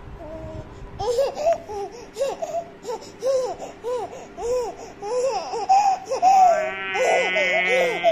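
Nine-month-old baby laughing in a run of short breathy bursts, about two a second, then a longer high-pitched note near the end.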